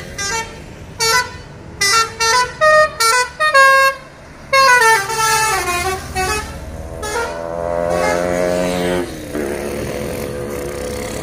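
Tour bus's musical multi-tone horn (an Indonesian 'telolet' horn) playing a quick tune of about seven short notes at changing pitches, then a longer run of falling notes. After that the bus's engine is heard going past close by.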